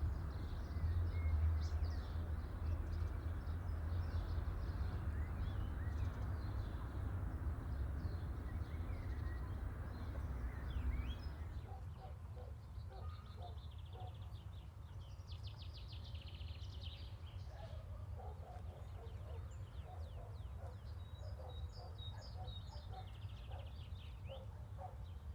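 Faint outdoor ambience. A low steady rumble fills roughly the first half; then, from about halfway in, small birds chirp and trill repeatedly.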